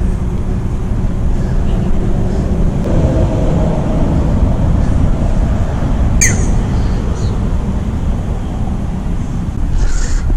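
Steady low rumble of wind buffeting the microphone, with a brief high click about six seconds in.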